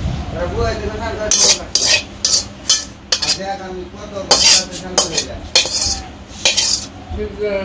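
Spatula scraping cooked vegetables out of a metal wok into a steel bowl: a dozen or so sharp, irregular scrapes and clinks of metal.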